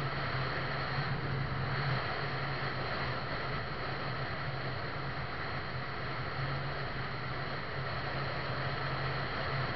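Steady drone of a vehicle travelling at highway speed: a constant low engine hum under road and wind noise.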